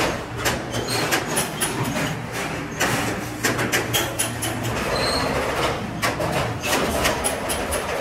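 Rocker-arm spot welder joining steel wire cage grids: rapid clacks of the electrode arm coming down on the wire and the mesh rattling against the steel bench, over a steady low machine hum.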